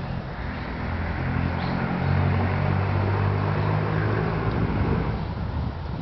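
A motor vehicle's engine running steadily as a low hum over general outdoor background noise. The hum fades out about five seconds in.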